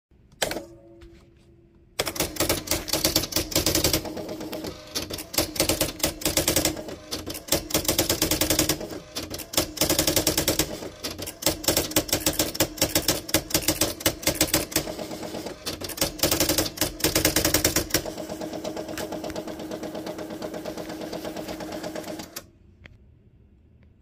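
Nakajima WPT-160 electronic typewriter printing a stored text automatically: fast runs of daisy-wheel strikes over the hum of its motors for about sixteen seconds. Then a few seconds of steady machine running without strikes, stopping shortly before the end.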